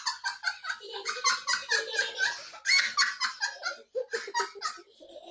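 A person laughing hard in rapid, breathy bursts, several a second, tailing off near the end.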